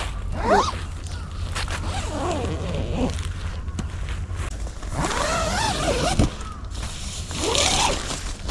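Crows cawing several times, each call a drawn-out rise-and-fall, over a steady low rumble.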